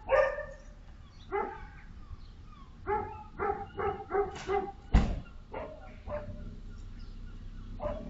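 A dog barking repeatedly in short barks, with a single loud thump about five seconds in.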